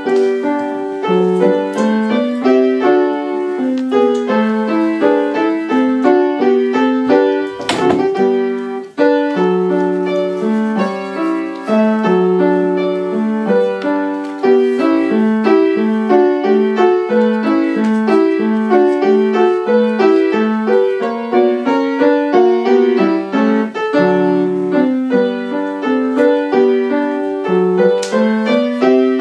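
Classical solo piece played on a grand piano: a continuous stream of quick notes with no break.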